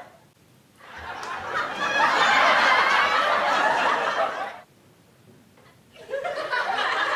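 Laughter in two stretches. The first runs from about a second in until a little past four seconds, then a short silence follows, and the laughter starts again near the end.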